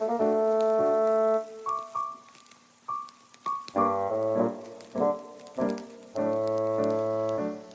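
Background music on a keyboard: held chords alternating with short single notes, with brief pauses between phrases.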